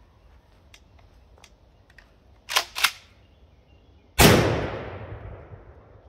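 Two quick sharp clacks of a pump-action 12-gauge shotgun being racked. About a second and a half later comes one loud shot firing a less-lethal round, its report dying away over about a second and a half.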